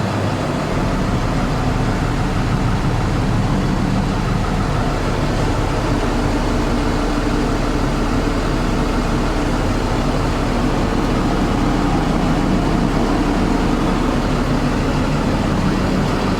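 Cummins B6.7L diesel engine idling steadily.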